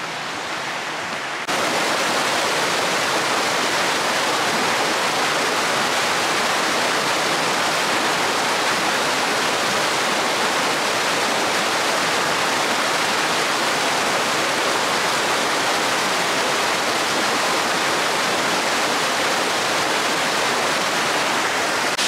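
Waterfall: a steady, even rush of falling water with no rhythm, stepping up louder about a second and a half in.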